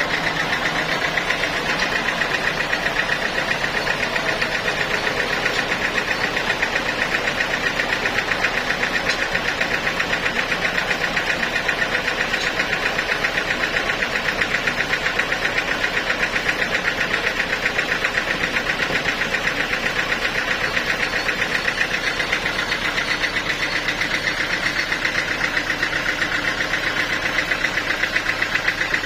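Sawmill machinery running steadily, a continuous mechanical drone with a fast, even pulsing that holds without change.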